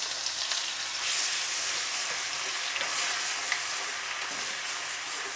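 Ginger-garlic paste frying in hot desi ghee in a karahi (wok): a steady sizzle with small crackles as a wooden spatula stirs it.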